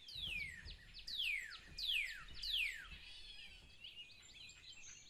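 Birds calling: four loud whistles in the first three seconds, each falling steeply in pitch, then fainter scattered chirps.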